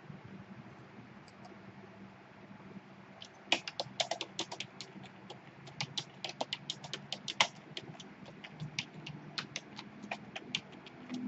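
Typing on a computer keyboard: a quick, irregular run of key clicks that starts a few seconds in and goes on in spurts.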